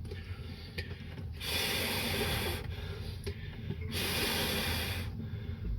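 Two rushes of air, about a second each and a second and a half apart, hissing over a low background.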